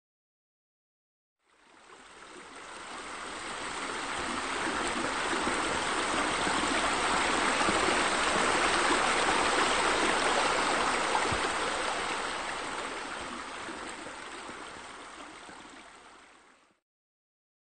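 Steady rush of flowing water, like a stream or spilling water feature. It fades in over a couple of seconds, holds, then fades away near the end.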